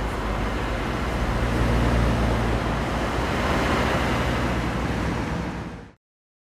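Road traffic noise with a steady low engine hum, fading out quickly near the end.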